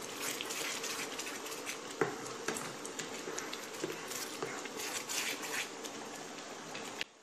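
Wooden spatula stirring thick, bubbling banana-and-jaggery halwa in a nonstick pan: wet squelching and bubbling with scraping and occasional knocks of the spatula against the pan. The mixture is at the stage where it starts to thicken. A faint steady hum runs underneath.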